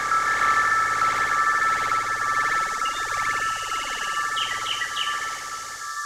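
Sustained high electronic drone of several steady tones, with a sweeping phaser-like whoosh that narrows toward the middle and a few short chirps a little after the middle, typical of eerie sound design in a film score.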